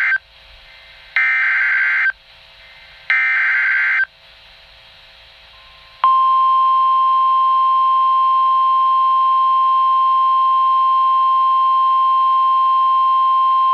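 NOAA Weather Radio Emergency Alert System signal for a flash flood warning, heard through the radio's speaker. First comes the end of one digital SAME header burst, then two more raspy data bursts, each about a second long and a second apart. From about six seconds in, the steady single-pitch warning alarm tone sounds without a break.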